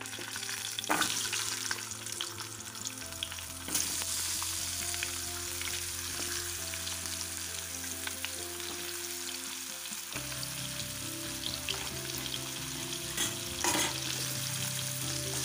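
Hot oil sizzling in a kadai as halved new potatoes are added to it, with a few sharp knocks as pieces go in. The sizzle grows louder about four seconds in.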